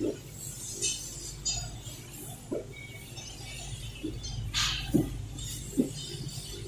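Polished brass faucet mixer bodies knocking and clinking against each other as they are handled in gloved hands: a handful of short, scattered clinks over a steady low hum.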